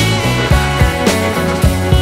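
Background rock music with a steady, driving beat.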